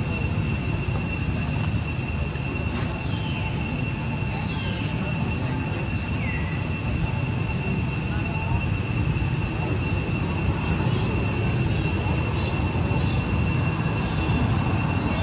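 Cicadas droning in one unbroken, high-pitched tone over a low steady rumble, with a few faint short chirps.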